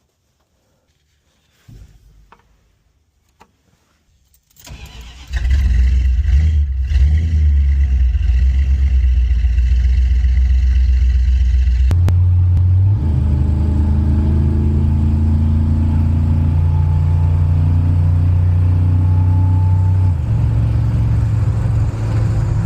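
A car engine cranks and starts about four and a half seconds in, then runs loudly and steadily at idle. Its pitch shifts around twelve seconds in and again near twenty seconds. A few faint clicks come before the start.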